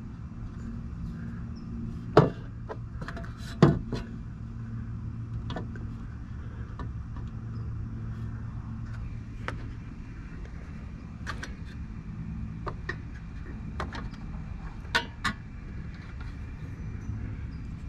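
Sharp knocks of parts being set down and fitted onto a wooden spacer in a truck's engine bay: two loud knocks about two and three and a half seconds in, a few lighter taps, and two more knocks close together near the end. A steady low hum runs underneath.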